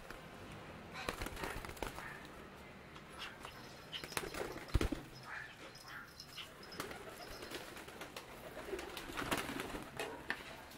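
Pigeons cooing and flapping their wings, with scattered short taps and scuffles.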